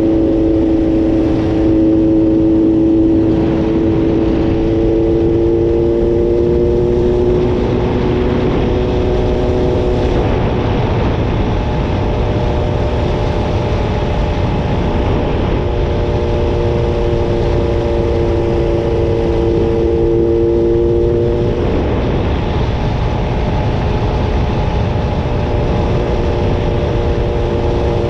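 Yamaha YDS3's 250 cc two-stroke twin running under way on the road, mixed with heavy wind rush. The engine note creeps slightly higher over the first several seconds, then twice sinks under the wind noise, about a third of the way in and again after two-thirds.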